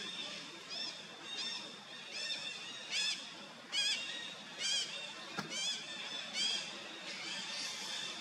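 A series of about eight short, high, wavering animal calls, a little under a second apart and loudest around the middle, over a steady high hiss. A single sharp click sounds just past halfway.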